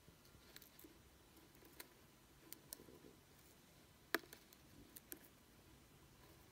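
Near silence: faint room tone with a few scattered sharp clicks, the loudest about four seconds in.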